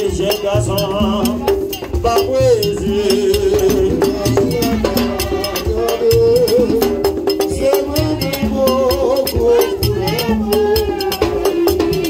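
A man's amplified voice sings a Vodou song over percussion, with a shaken rattle clicking quickly and steadily and low drum beats underneath.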